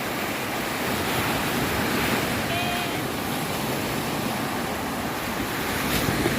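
Sea surf rushing and breaking on a sandy beach in a continuous wash, with the waves running strong.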